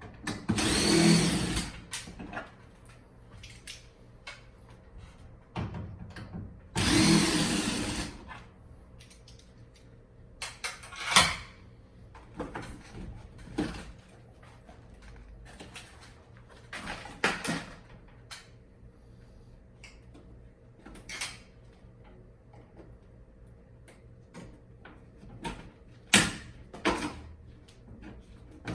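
Power drill-driver running in two short bursts of about a second and a half, one near the start and one about seven seconds in, as screws are driven out of the air conditioner's casing. Between the bursts come scattered clicks and knocks of parts being handled.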